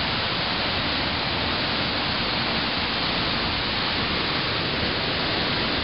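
Steady, even rushing hiss with no separate sounds in it.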